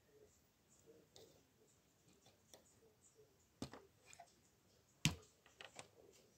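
Faint, scattered clicks and light knocks of fingers handling a plastic LEGO model, the loudest about five seconds in.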